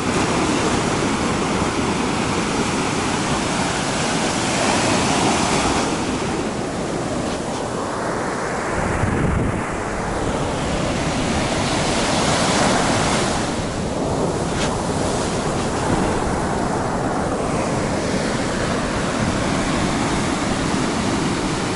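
Sea surf breaking and washing up the shore: a continuous rush that swells and eases every few seconds, with wind rumbling on the microphone.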